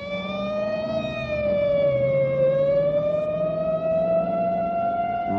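Police squad-car siren wailing at a high pitch after winding up. The pitch sags a little about two seconds in and climbs back, with a low steady hum beneath.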